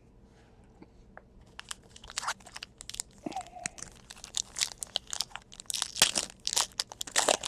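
A trading-card pack wrapper being torn open and crinkled by hand: a quick run of irregular crackles and rips that starts about a second and a half in.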